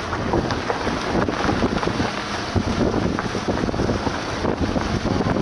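A vehicle driving along a rough gravel road, with wind buffeting the microphone over the rumble of the tyres and irregular knocks and rattles from the bumpy surface.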